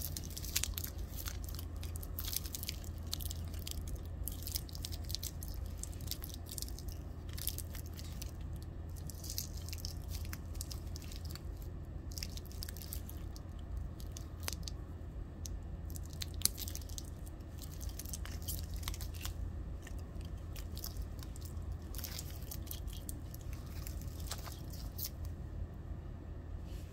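Handling noise from white cotton-gloved fingers turning a wristwatch on its metal link bracelet: faint, irregular crackling rustles and a few small clicks, over a steady low hum.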